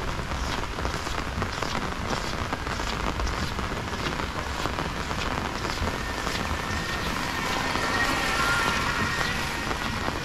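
Heavy rain falling steadily, with many separate drops hitting surfaces close by. From about six seconds in, a faint high steady tone sounds for a few seconds under the rain.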